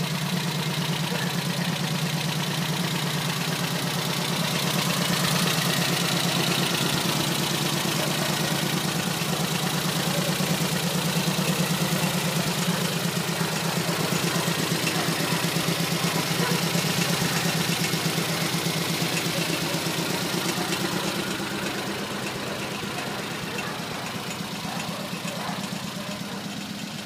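A sandrail's air-cooled flat-four engine with twin carburetors idling steadily, its even firing pulses louder in the middle and fading near the end.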